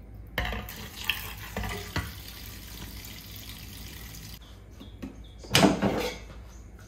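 Tap water running and splashing into a colander of sweet potatoes in the sink, with a few light knocks as the colander is set down and handled. The water stops, and a louder clatter follows near the end as an air fryer's drawer basket is pulled open.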